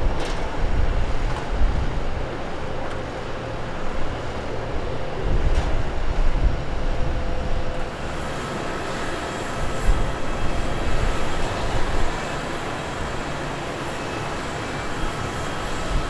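Jet engines of an Airbus A330 airliner running as it rolls on the runway: a steady low rumble that swells and dips, with a faint high hiss joining about halfway through.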